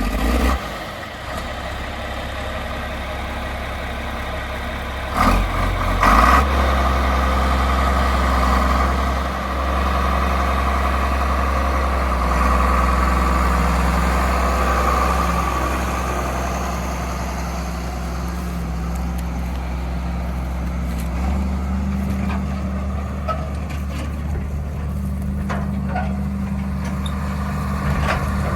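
John Deere 4440 tractor's six-cylinder diesel running steadily under load, powering a Sperry New Holland 782 forage harvester as it chops corn. There is a louder stretch of noise about five to six seconds in, and the engine note shifts about twenty seconds in.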